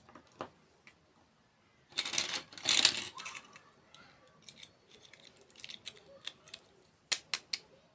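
Close-miked crunchy eating sounds: a loud crackling crunch about two seconds in, then scattered small crisp clicks, and three sharp clicks near the end.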